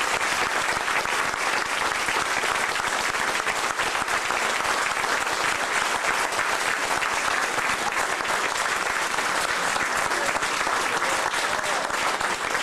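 A large audience clapping steadily, a dense unbroken patter of many hands, with some voices mixed in.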